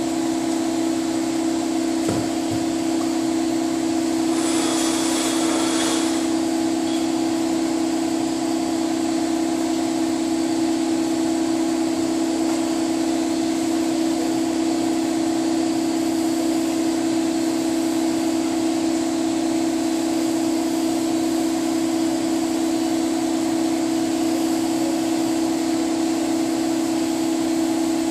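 Paint booth ventilation fan running with a steady, even hum. A short hiss of the spray gun comes about five seconds in.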